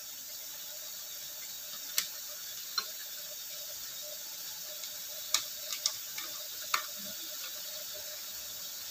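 Steady rain hissing, with a few short pops scattered through it.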